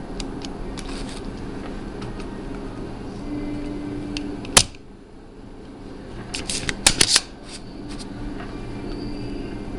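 Spring-loaded solder sucker (desoldering pump) firing with one sharp snap about halfway through as it pulls molten solder from a controller board joint, followed a couple of seconds later by a quick cluster of smaller clicks. A low steady hum runs underneath.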